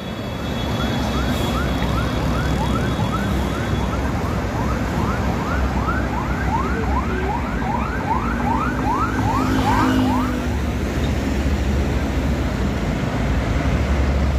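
Escort vehicle's siren on a fast yelp: rising whoops about two and a half a second, stopping about ten seconds in. Underneath is a steady low rumble of passing buses and traffic.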